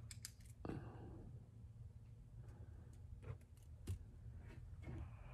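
Quiet room tone: a steady low hum with a few faint clicks and taps.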